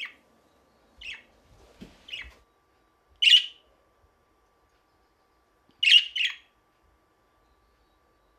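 Caged budgerigars giving about six short, sharp calls a second or so apart. The loudest comes a little after three seconds in, and a quick pair near six seconds.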